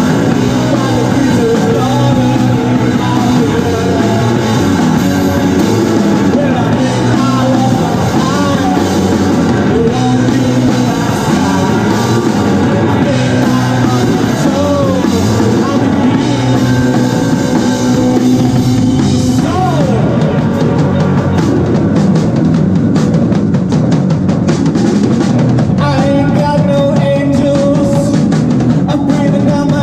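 Live rock band playing a song on drum kit and electric guitars.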